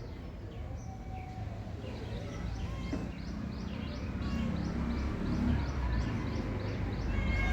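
High, short chirps from a small animal, repeating evenly about three times a second, over a low rumble that grows louder in the second half.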